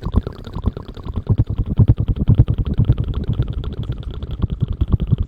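Rapid crackling scratching and rubbing right against the microphone, many short strokes a second, heavy at the low end, in the manner of ASMR hair-washing sounds.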